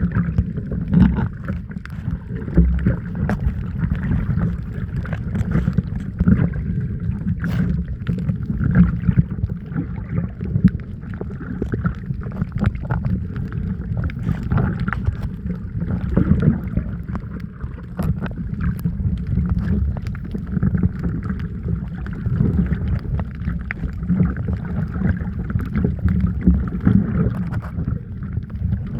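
Muffled low rumble and sloshing of water around a snorkeller's camera, with scattered small clicks and pops.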